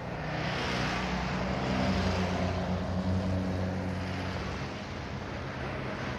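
Car engine and road noise heard from inside a moving car: a steady low engine drone over a hiss, swelling over the first two seconds and then easing off.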